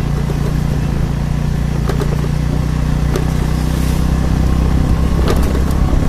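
Motorcycle engine running steadily while riding, a low hum that slowly grows louder, with a few sharp clicks about two, three and five seconds in.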